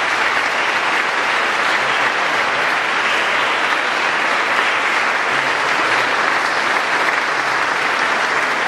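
Audience applauding steadily in a church, a dense even clapping with no music.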